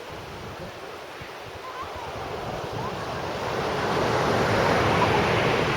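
Sea waves breaking on the beach, the surf swelling louder about three seconds in, with wind buffeting the microphone.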